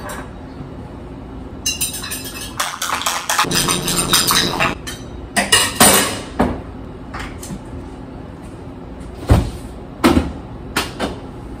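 Kitchen clatter of a glass, bottle and pitcher handled at the counter, dense for a few seconds. It is followed near the end by a few sharp separate knocks as the refrigerator is opened and shut.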